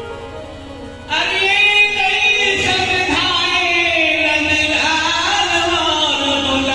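Devotional Hindu kirtan: sung bhajan with musical accompaniment, coming in loudly about a second in and carrying on steadily.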